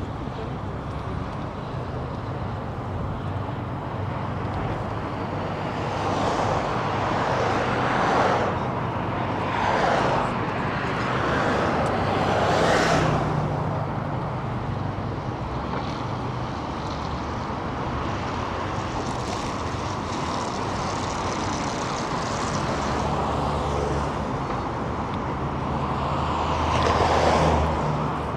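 City road traffic: cars passing close by one after another over a steady low hum of engines and road noise. Louder passes come at about six to eight, ten, thirteen and twenty-seven seconds in.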